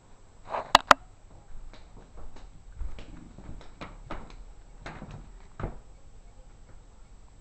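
Two sharp clicks close together about three quarters of a second in, then a run of soft, irregular knocks and bumps from handling and movement through a room.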